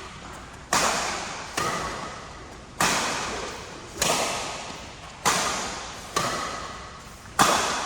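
Badminton rally: rackets striking the shuttlecock seven times, about one hit a second, each sharp crack followed by a short echoing tail.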